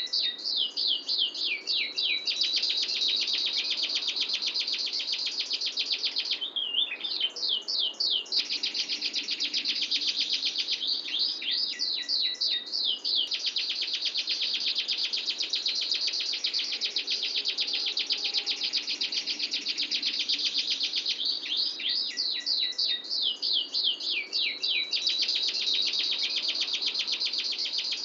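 Domestic canary singing long rolling trills of very rapid, tightly packed clear notes, broken every several seconds by short runs of quick sweeping notes.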